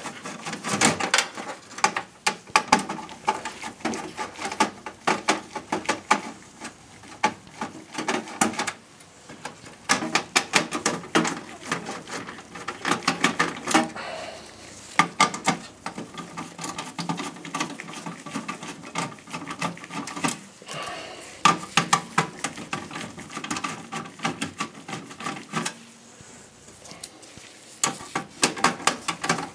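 Irregular clicking, tapping and rattling of hand work inside a Dell OptiPlex 7020's steel case: a Phillips screwdriver turning out the motherboard's mounting screws, with cable connectors being unplugged.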